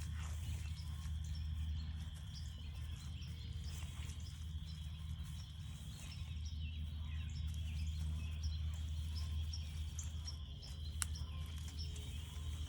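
Chorus of frogs calling, a steady high-pitched din with small chirps scattered through it.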